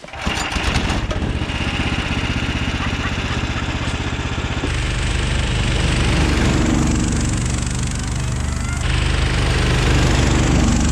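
Small motorized snow tug (motosobaka) engine running steadily while towing a sled, getting a little louder about halfway through.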